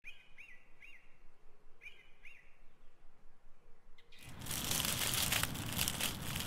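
A bird chirping a few short calls, two or three at a time. From about four seconds in comes a loud crackling rustle of dry fallen leaves, stirred by a person lying in them.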